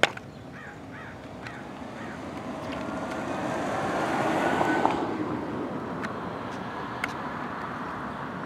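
Jet airliner passing: its engine noise swells to a peak about halfway through, with a faint whine riding on it, then eases off. A crow caws a few times near the start.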